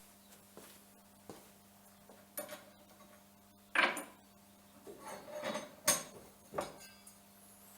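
Scattered light metallic clinks and knocks of pieces of metal angle stock being handled and set down, over a faint steady electrical hum.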